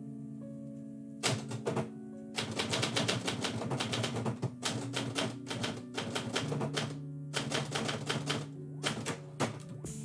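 Typewriter keys striking in quick runs of typing, with a short pause about two-thirds of the way through. Background music with steady sustained notes plays underneath.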